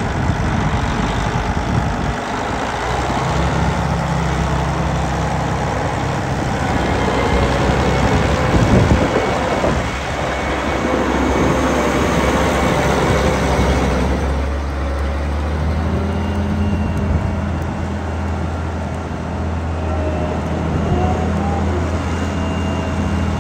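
CAT Challenger MT855C tracked tractor's diesel engine running steadily, with a brief rise in loudness about nine seconds in.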